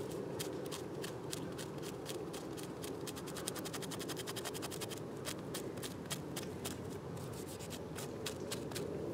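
Knife blade scraping a piece of silver birch bark in quick repeated strokes, several a second, raising fine bark shavings as tinder for a ferro rod spark.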